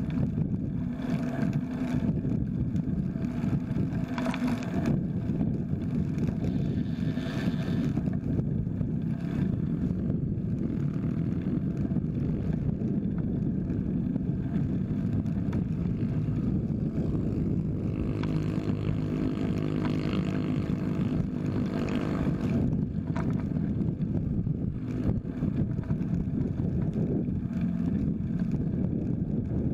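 Steady wind buffeting and road rumble on a bicycle-mounted camera's microphone while riding along a highway, with traffic alongside. A motor vehicle's engine passes close about two-thirds of the way through.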